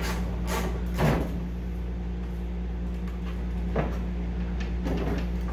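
Ratchet and socket unbolting the window regulator inside a Chevy C10 truck door: a few scattered metal clanks against the door's sheet-metal inner panel, over a steady low hum.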